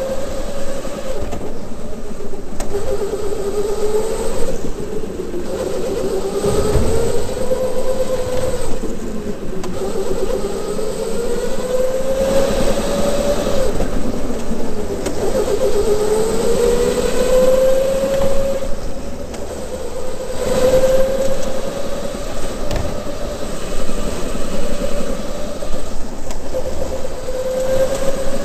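Onboard sound of an electric indoor go-kart: the motor's whine rises in pitch as the kart speeds up and drops as it slows for the corners, again and again, over tyre noise on the concrete track.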